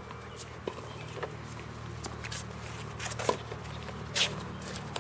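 Footsteps and a few light knocks on a hard tennis court over a steady low hum. The sharpest knock comes about three seconds in, followed a second later by a brief scuff.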